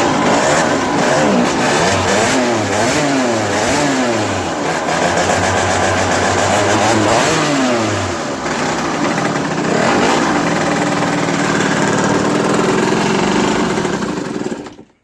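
KTM 65 dirt bike's small two-stroke single-cylinder engine running and being revved up and down again and again, then held at a steadier, higher speed for the last few seconds before it cuts off near the end. This is the engine running again after its no-start was cured by draining water from the cylinder and cleaning the carburetor.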